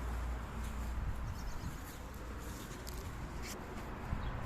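Quiet outdoor background with a low rumble fading out at the start and a few faint, short high-pitched sounds.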